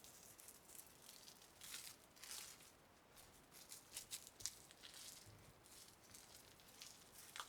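Faint rustling and crinkling with a scatter of light clicks and taps, the sound of hands handling food and packaging during kitchen preparation.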